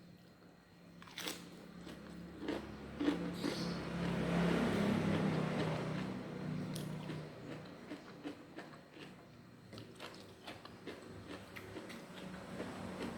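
Close-up eating sounds: chewing and crunching of food, with sharp bite clicks scattered throughout. A louder rushing noise swells and fades between about three and seven seconds in.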